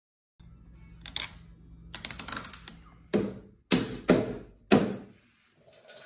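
Wooden parts clicking and knocking together as a joint is fitted: a quick rattle of small clicks, then four sharp knocks.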